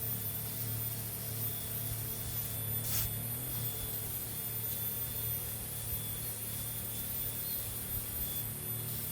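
Crop sprayer running: a steady motor hum with an even hiss of spray.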